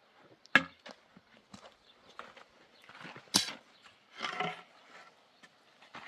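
Dry, weathered wooden branches knocking and clattering as they are picked up and handled, a few separate sharp wooden knocks, the loudest about half a second in and about three and a half seconds in, with a short scrape around four and a half seconds.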